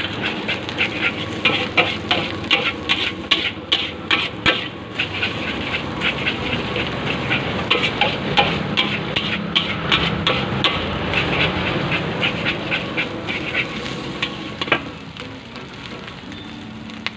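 A metal spatula scraping and tapping against an aluminium wok in quick, uneven strokes while rice with egg is stir-fried, with the rice frying underneath. The stirring stops near the end.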